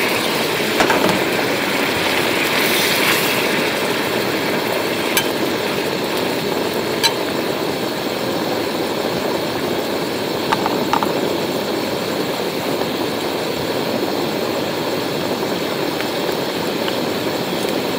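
Camp cooking: a steady hiss of food frying on a hot pan over a stove, with a few sharp clicks and pops.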